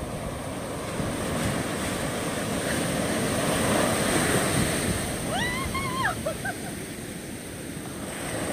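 Ocean surf breaking and rushing up over the sand, swelling louder through the middle, with some wind on the microphone. About five and a half seconds in, a short pitched cry from a voice rises and falls twice.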